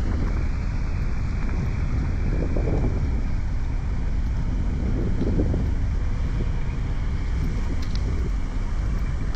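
Wind buffeting the microphone: a steady low rumble that swells and eases in gusts every second or two.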